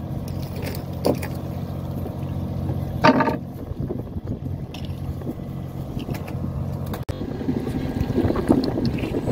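Fishing boat's engine running with a steady low hum, with a click about a second in and a brief louder sound about three seconds in. About seven seconds in the sound cuts to a noisier rumble.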